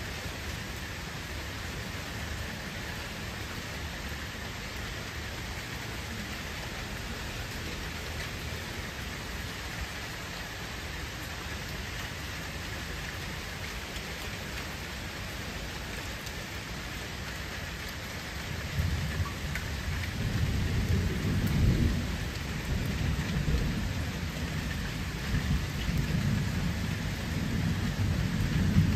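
Steady rain falling on the water of a pool, an even hiss of drops hitting the surface. About two-thirds of the way through, a low rumble comes in and swells unevenly to the end.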